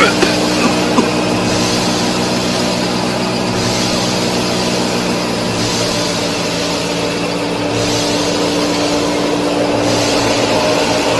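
Steady engine-like drone of a mini tractor running, with a higher hiss that comes and goes about every two seconds.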